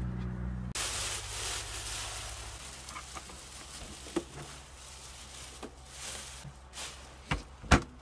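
Clear plastic stretch wrap being pulled off a new chest fridge-freezer, crinkling loudly at first and then fading into scattered small crackles and taps. Two sharp knocks near the end are the loudest sounds.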